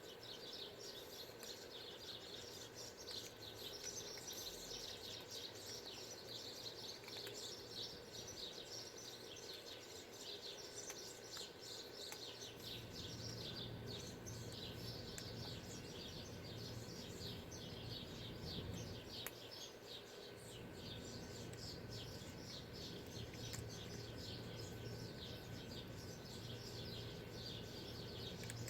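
Many small birds chirping and twittering without a break, with a low steady hum coming in about twelve seconds in.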